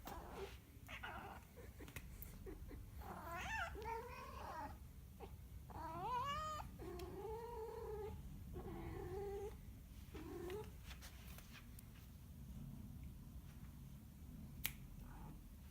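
Domestic cat yowling: about half a dozen drawn-out, wavering calls over the first ten seconds or so. Then it falls quieter, with one sharp click near the end.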